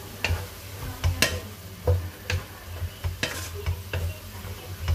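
A cooking utensil stirring beans and meat in a pan, knocking and scraping against the pan about ten times at an irregular pace.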